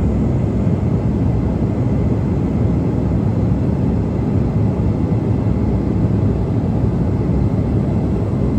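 Steady cabin noise of a Bombardier CRJ200 at full power in the takeoff climb: the deep, even roar of its rear-mounted GE CF34 turbofans and airflow, with a faint steady whine above it.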